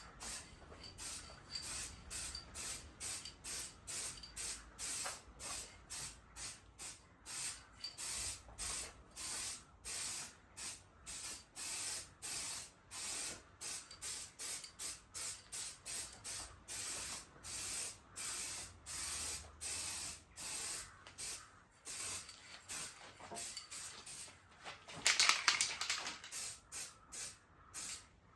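Aerosol spray can of matte black engine enamel hissing in short bursts, about two a second, with one longer, louder burst near the end: a light dust coat going onto an engine block.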